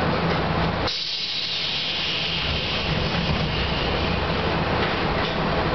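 Pneumatic passenger doors of an Iyo Railway 800 series (ex-Keio 2010 series) car opening: a sudden sharp hiss of air from the door engines about a second in, fading over the next second or two, over a steady low hum in the car.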